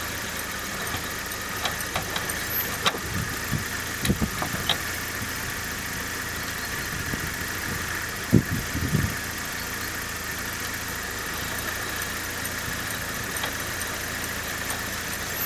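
Opel Vectra A engine running in first gear, driving a jacked-up front wheel that spins freely. This side's hub bearing is the healthy one, so the steady hum carries no bearing growl. A few short clicks and knocks come through about four seconds in and again around eight to nine seconds.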